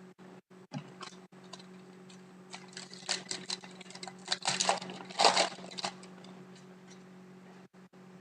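Trading cards being handled and flipped through by hand: a run of light clicks and rustles, busiest between about two and a half and six seconds in, over a steady low hum.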